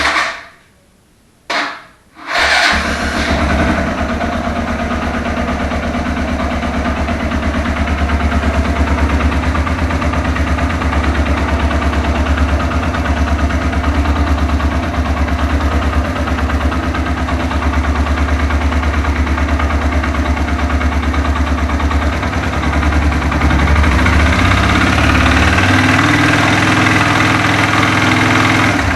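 Suzuki Thunder 125 single-cylinder four-stroke engine started: two short tries, catching about two and a half seconds in, then idling steadily, a little louder from about 23 seconds in. The owner describes this engine as having strange, worrying noises inside it.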